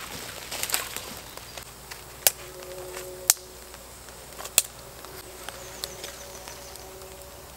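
Small wood campfire crackling, with three loud sharp pops spread over a couple of seconds and smaller ticks between. A faint steady hum sits underneath from a couple of seconds in.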